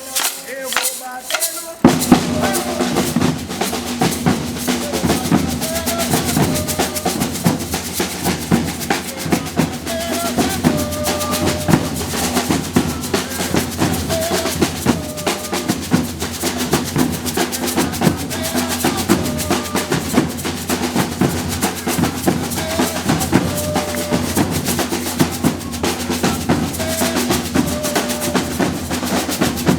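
Brazilian-style percussion band playing a driving drum groove, deep bass drums under rattling snares. A few separate hits, then the full band comes in about two seconds in and keeps a steady rhythm.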